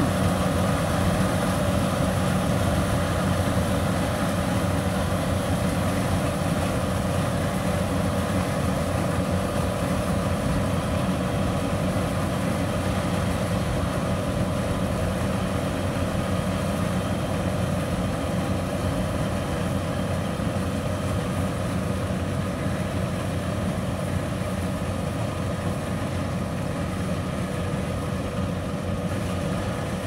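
Small rice combine harvester running steadily under load as it harvests, its engine and machinery making an even drone that slowly grows a little fainter as the machine moves away.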